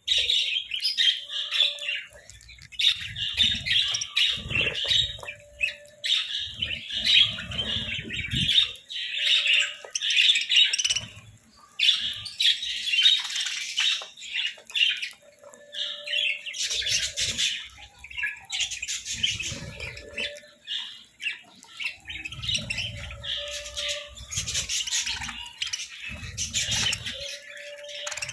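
Budgerigars chattering and chirping nonstop in a dense, warbling stream, with scattered clicks and soft low thumps among them. A short low tone comes back every couple of seconds.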